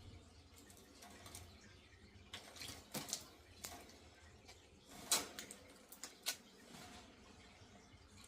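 Lovebirds bathing in a water dish: faint, irregular light splashes and taps, with a cluster a few seconds in and the loudest splash about five seconds in.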